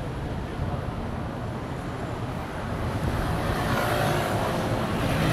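City street traffic with wind rumbling on the microphone, growing louder in the second half as vehicles pass close.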